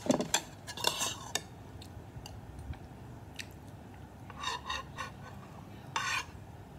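Metal spoon clinking and scraping against the bowl while scooping up tapioca pearls: a quick run of clicks at first, then a few short scrapes later on.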